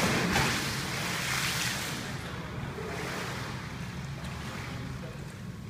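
A big splash as a person in a life jacket drops into the pool, followed by churning splashes of swimming that ease off over the next couple of seconds. A steady low hum runs underneath.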